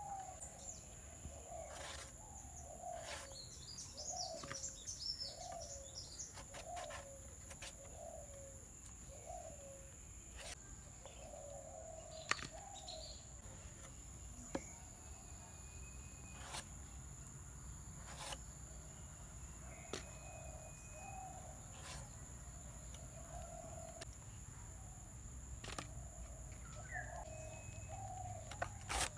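Birds calling: one repeats a short, mid-pitched call over and over, and a higher twitter comes in briefly, over a steady high insect-like whine. Sharp clicks and knocks now and then come from a melon being peeled and cut against a fixed blade.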